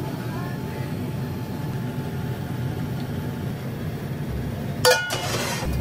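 A metal ladle strikes a carbon-steel wok near the end: one sharp, ringing clang, followed briefly by the ladle scraping in the pan. A steady low rumble runs underneath throughout.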